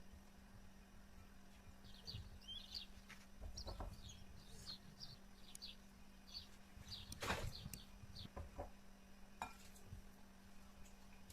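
Faint, quick bird chirps come in a rapid series, with a few light clicks and knocks; the loudest knock is about seven seconds in. A steady low hum runs underneath.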